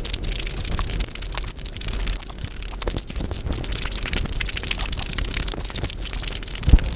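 Close-miked eating sounds sped up five times: a rapid stream of wet chewing, smacking and crunching clicks, with one low thump near the end.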